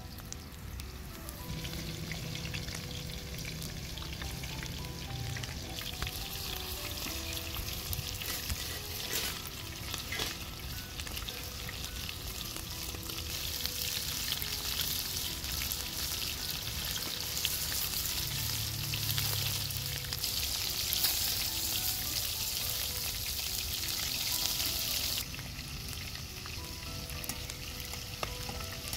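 Chicken hearts deep-frying in a large pan of hot oil: a steady, dense sizzle and bubbling, which drops abruptly quieter a little before the end.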